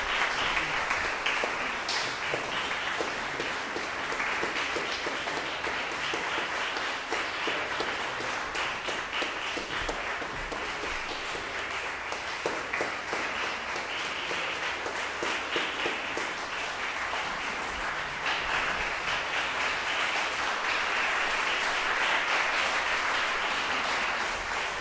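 Concert audience applauding steadily after a chamber music performance, with many hands clapping at once. The applause swells a little near the end.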